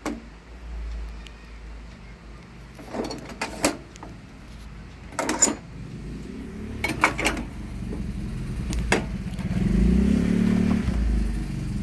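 Scattered sharp clicks and knocks of parts being handled, then a low machine hum that swells over the last few seconds, typical of a hot-melt glue binding machine's motor running.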